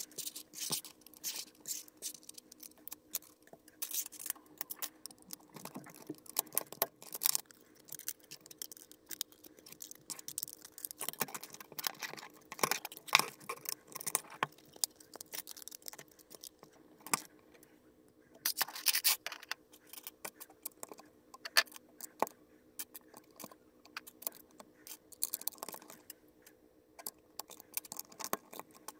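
LEGO plastic parts handled on a tabletop: grey plates slid and pressed together and small white bricks pushed onto a plate, giving irregular clicks, taps and light clatter, busiest about twelve seconds in and again near nineteen seconds. A faint steady hum runs underneath.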